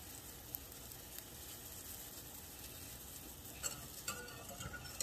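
Steady bubbling hiss of water at a rolling boil in a stainless saucepan, mixed with eggs sizzling in a skillet beside it. From about three and a half seconds in, a wire whisk starts clinking against the saucepan as butter is whisked into the water.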